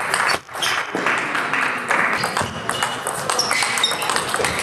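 Table tennis doubles rally: the celluloid-type ball clicking off bats and the table in quick, uneven strokes, over the chatter of a busy sports hall.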